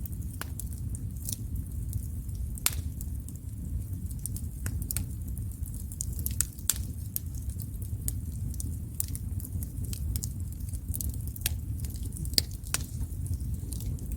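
Wood fire burning, with frequent irregular sharp crackles and pops over a steady low rumble.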